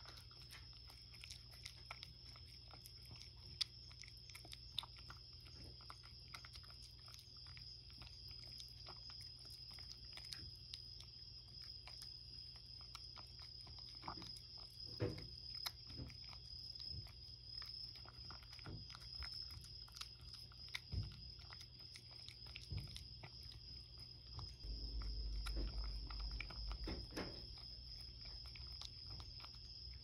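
A cat eating warmed canned cat food from a bowl: faint, wet chewing and small clicking mouth sounds throughout, over a steady high whine and low hum. A louder low rumble comes in for a couple of seconds near the end.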